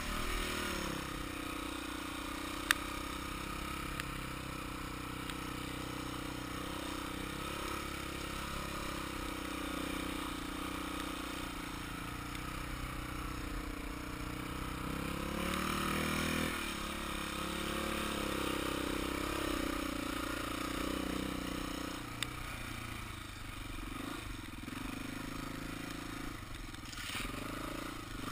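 Dirt bike engine running under way on a dirt trail, its pitch rising and falling with the throttle. There is a single sharp knock about three seconds in.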